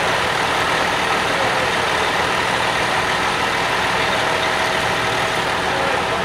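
Idling engines of emergency vehicles: a steady, loud drone with no breaks or changes.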